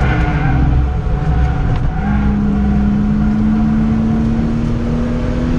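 BMW 323ti's 2.5-litre straight-six engine heard from inside the cabin on track, running rough and unsteady through a corner, then pulling hard from about two seconds in with its pitch rising slowly as the revs climb.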